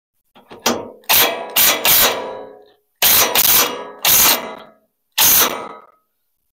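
Wrench work on the track wheel bolts of a Hud-son portable bandsaw mill: a series of about eight sharp metallic clanks, each ringing out briefly, as the overtightened wheels are backed off so the mill can roll on its track.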